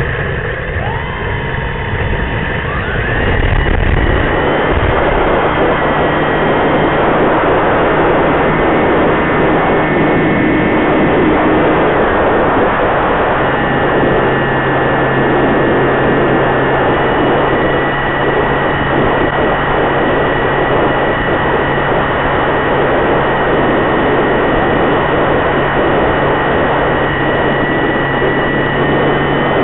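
Home-built foam twin-boom pusher RC plane in flight, its propeller motor whining over a steady rushing noise as heard on board. The whine rises in pitch about two to four seconds in, then holds steady.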